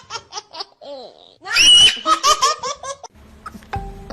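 High-pitched human laughter: a run of quick laughs, a short high squeal about one and a half seconds in, then another rapid run of laughs.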